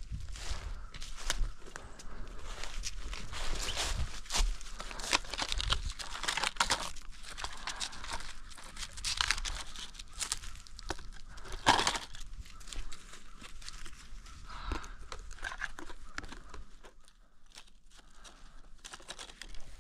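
Footsteps crunching through dry fallen leaves, followed by crinkling and rustling as a gloved hand handles a paper target against a tree trunk. The sound grows quieter near the end.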